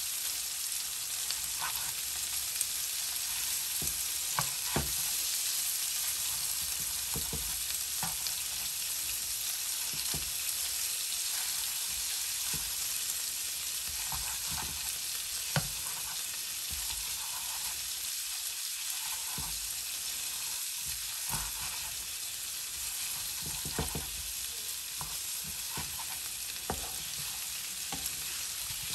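Prawns, onions and chillies sizzling in oil in a frying pan, stirred with a spatula. The spatula scrapes and clicks against the pan now and then.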